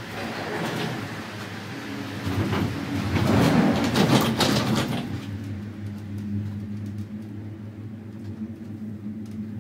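Gondola lift cabin running out of the station, heard from inside: the carriage clatters and rattles through the station machinery, loudest about three to five seconds in. It then settles into a steadier low hum as the cabin rides out on the cable.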